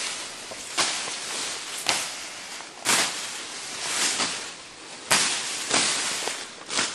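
Tall grass being slashed by hand, each stroke a swish through the stalks ending in a sharp crack, about once a second.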